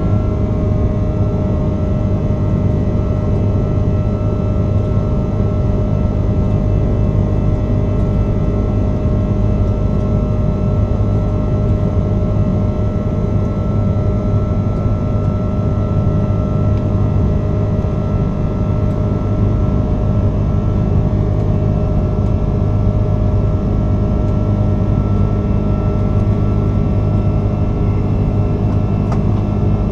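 Airbus A330-300 in its climb after takeoff, heard from the cabin beside the wing: its Rolls-Royce Trent 700 engines make a steady, loud low drone with several steady whining tones over it.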